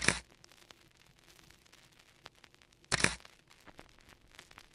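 Edited intro sound effects: two short, sharp bursts of noise, one at the start and one about three seconds later, over a faint crackle.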